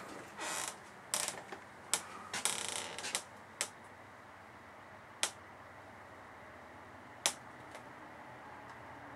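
Several sharp clicks and short rustles in the first few seconds, then single clicks about two seconds apart, over a faint steady hum.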